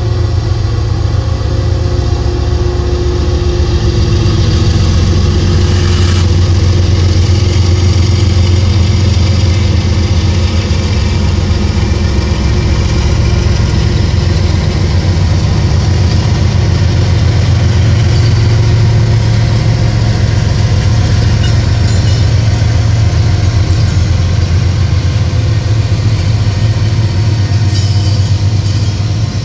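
Diesel locomotive engine running steadily: a loud, deep, even drone.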